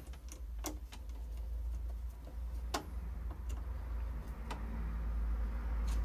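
An insulated screwdriver turning the small screw of a circuit breaker lock-off clip on an MCB, giving a handful of scattered small clicks over a steady low hum.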